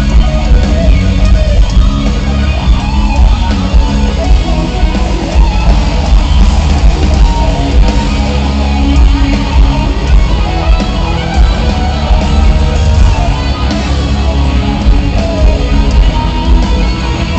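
Loud live rock band playing an instrumental jam: distorted electric guitars over bass and drums, with no singing.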